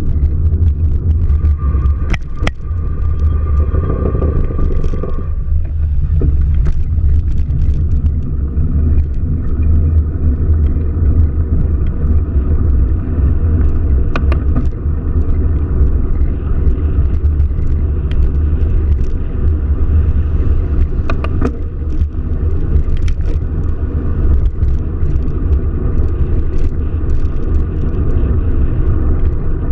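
Car driving: a steady low rumble of engine and road noise, with scattered clicks and knocks.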